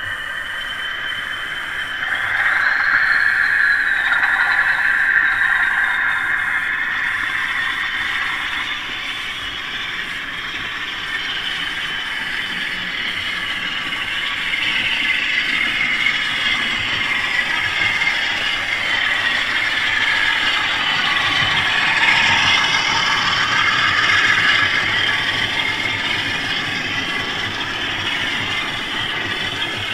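A 4mm-scale model train running past: model Cemflo cement wagons clatter along the track, with the recorded Class 40 diesel engine sound from the locomotive's Howes sound unit. The sound gets louder about two seconds in.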